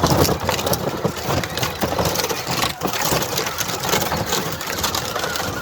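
Power Wheels Jeep Hurricane ride-on toy, run on a 20-volt DeWalt battery, driving over rocky ground: a continuous crunching and grinding of its plastic wheels on rock and gravel over the drone of its electric motors and gearboxes.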